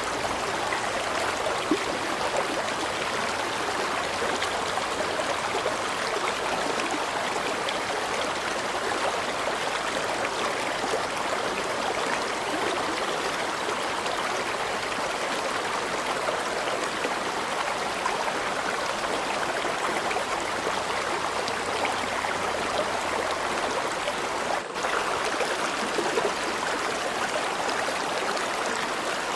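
River water flowing in a steady, even rush, with a momentary dropout about 25 seconds in.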